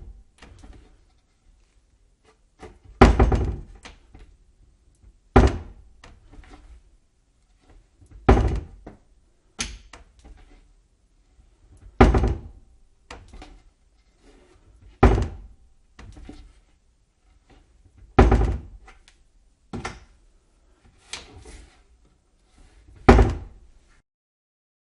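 A cabinet door being shut again and again, a sharp thunk every two to three seconds with lighter clicks and rattles of the door and latch in between. There are about ten closes, some softer than others.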